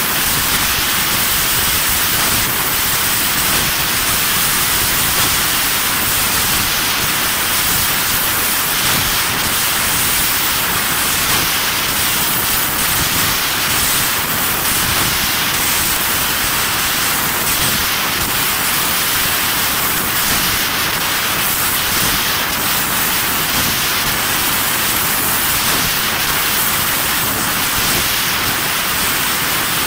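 Fiber laser tube cutting machine cutting a metal tube: a steady, loud hiss of assist gas jetting from the cutting head's nozzle through the cut.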